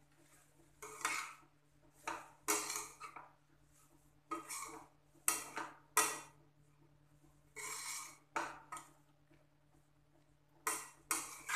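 A spatula scraping and knocking against a kadhai as dry cabbage-and-potato sabzi is stirred and tossed, in irregular strokes about once a second.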